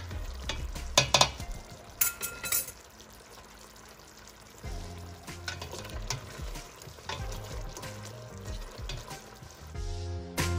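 Pork adobo simmering and sizzling in a stainless steel pot as a ladle stirs it, with a few sharp clinks of the ladle against the pot in the first few seconds. Soft background music plays and grows louder near the end.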